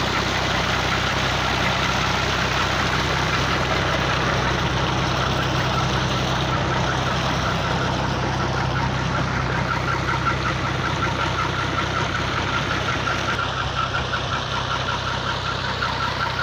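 Ghazi tractor's diesel engine running steadily under load, driving a tubewell pump, over the rush of water gushing from the pump's outlet pipe into a brick tank and irrigation channel.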